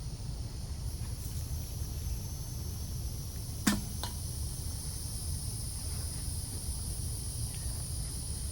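Steady high insect buzzing over a low outdoor rumble, broken by one sharp click a little under four seconds in and a fainter click just after.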